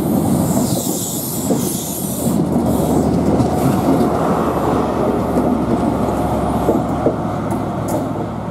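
InterCity 125 (Class 43 HST) pulling out past the platform: carriages rumbling and clicking over the rail joints, with the steady low drone of the rear power car's diesel engine growing in the second half and starting to fade near the end.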